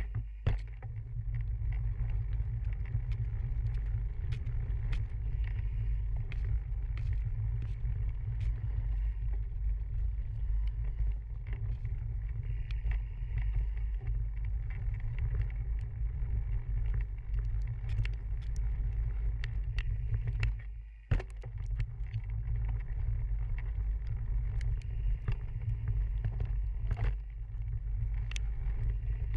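A mountain bike ridden fast down a rough trail, heard through a chest-mounted camera's microphone: steady low wind noise with frequent clicks and rattles from the bike over bumps. The sound drops out briefly about two-thirds of the way through.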